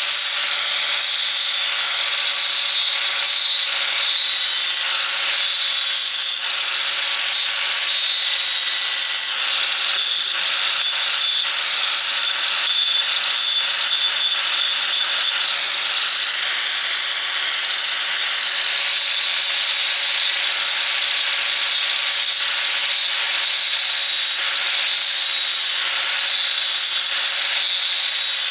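Ozito angle grinder with a diamond brick-cutting blade cutting into a clay brick: a steady, high-pitched grinding whine that runs without a break.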